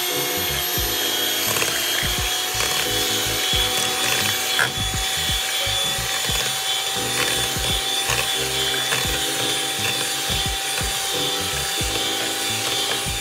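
Electric hand mixer running on low speed, beating eggs, oil and sour cream in a mixing bowl. It makes a steady motor whine over an irregular low rattle of the beaters, and cuts off suddenly near the end.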